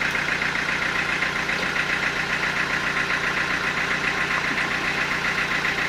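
Sawmill machinery running steadily with no cut being made, an engine ticking over with a fast, even beat.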